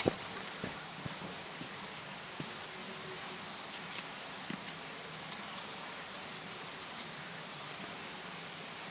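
Steady high-pitched insect chirring, with a few faint clicks and taps scattered through it.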